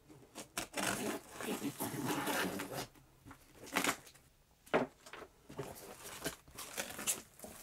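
Packing tape being torn open along the seam of a cardboard shipping box: a long rasping rip, then several sharp crackling tears as the cardboard flaps are pulled apart.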